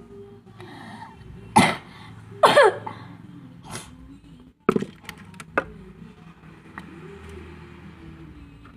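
A person with a cough and cold coughing: two loud coughs about a second apart, the second with a voiced, falling sound, followed by a few fainter sharp sounds.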